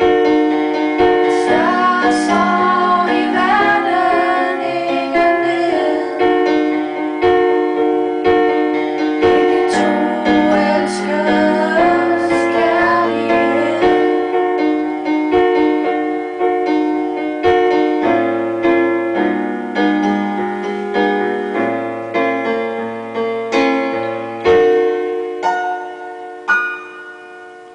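A woman singing a song with piano accompaniment. The voice stops about halfway through and the piano plays on alone, its last chord fading away near the end.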